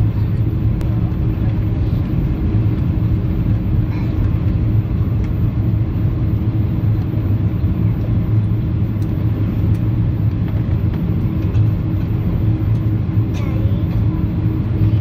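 Steady cabin noise inside a four-engine Airbus A340 airliner on its landing approach: a low, even rumble of engines and airflow with a steady hum over it.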